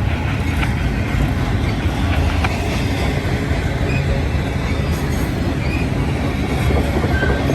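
Two intermodal freight trains of container well cars and trailer-carrying spine cars rolling past side by side on double track, a steady rumble of wheels on rail.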